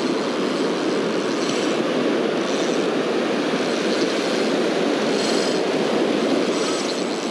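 Steady rush of ocean surf and wind on the microphone, with short high buzzes every second or so from a spinning reel's drag as a hooked fish pulls line out.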